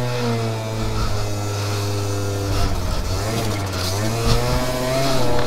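Aprilia SR50 scooter's two-stroke engine under load, climbing a steep dirt trail. Its pitch rises as the throttle opens, dips around the middle and climbs again before easing off near the end.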